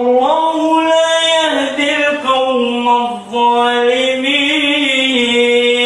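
A man's voice chanting in long, drawn-out held notes that bend and waver, in the melodic style of Quran recitation, then settles into one steady sustained tone about three seconds in.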